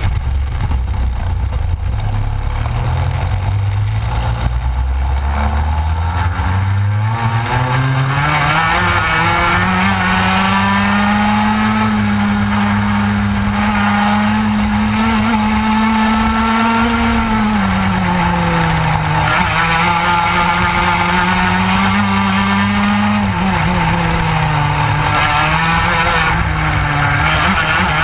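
Onboard sound of a TKM Extreme kart's 100cc two-stroke engine, the note climbing steadily over the first several seconds as the kart pulls away. It then runs at high revs, dropping twice as the kart slows and picking up again.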